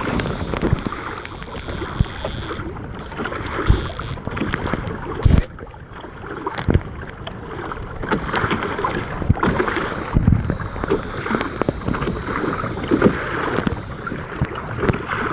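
Water splashing and lapping against the hull of a Hobie Tandem Island sailing kayak under way, with irregular low thumps.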